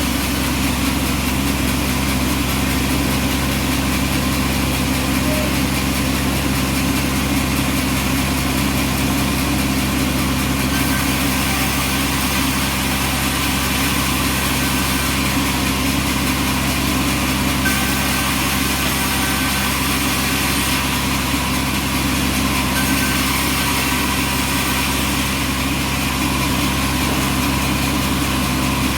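Bandsaw sawmill's engine running steadily at a constant speed.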